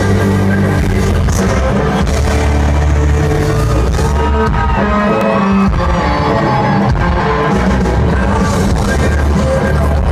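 Live country-rock band playing loud: drums, electric guitars, bass and keyboard under a male lead vocal, heard from among the audience.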